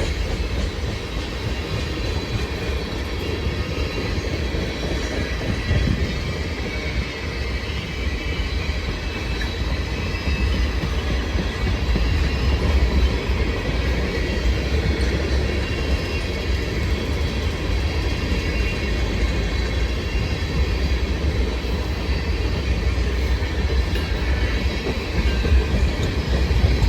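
Freight train rolling steadily past: a continuous low rumble of railcar wheels on the rails, with faint high wheel tones over it.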